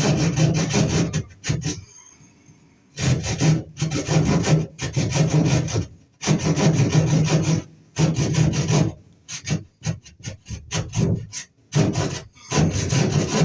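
Hand keyhole saw cutting through the wall along a traced outline for an electrical box, with rapid back-and-forth rasping strokes. The strokes come in runs of a few seconds, pause briefly about two seconds in, and turn shorter and choppier in the second half.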